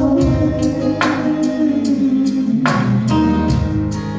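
Live Hawaiian band music: sung vocals over instruments, with an accented stroke about every second and a half.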